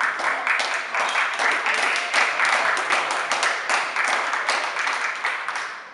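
A small group of spectators clapping in a hall after a point in a table tennis match, the applause dying away near the end.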